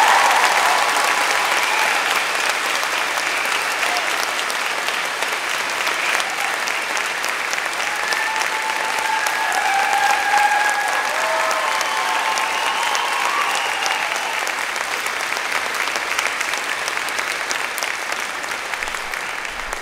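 Audience applauding, a dense sustained clapping that is loudest at the start and slowly tapers off near the end.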